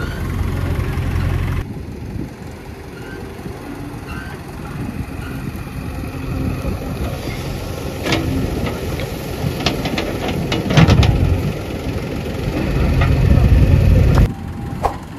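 JCB 3DX backhoe loader's diesel engine running under load as the rear bucket digs. The steel bucket scrapes and knocks into stony soil, with a run of sharp clicks and cracks in the second half and the engine surging louder near the end.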